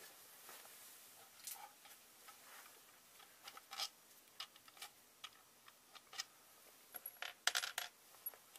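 Scattered light clicks and taps of hands handling a plastic equipment case and its lid, with a quick cluster of louder clicks near the end.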